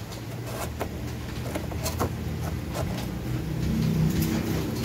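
Puppy chewing and biting at the edge of a cardboard box, making scattered crisp clicks and crunches. A low engine hum grows louder over the last second or so.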